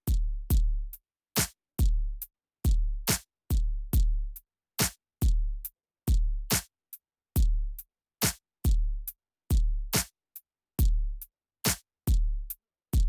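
Background electronic music: a drum-machine beat with deep bass kicks and sharp snare and hi-hat hits, separated by short silent gaps.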